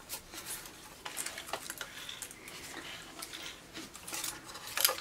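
Scattered light metallic clicks and scrapes from a rusty drill press head as its feed handle is turned by hand, a test of whether the stiff mechanism moves more freely after loosening; a sharper click near the end.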